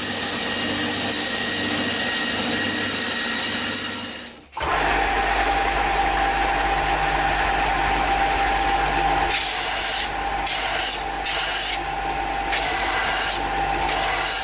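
Electric power tools working a length of 2x4 lumber: one tool runs for about four and a half seconds and stops, then a second, louder one starts with a steady hum and runs on, its higher noise cutting in and out several times near the end as it bites into the wood.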